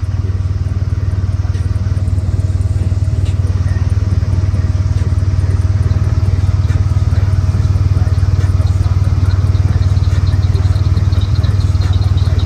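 Side-by-side UTV engine idling, a steady low hum with no revving.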